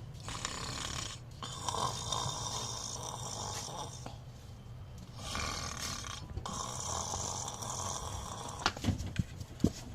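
A sleeping dog snoring, in long breaths that each last a few seconds, with a pause of about a second between them. A few sharp knocks come near the end.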